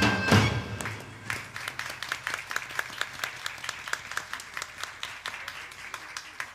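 The music stops within the first second, then a small audience claps, the applause slowly fading out.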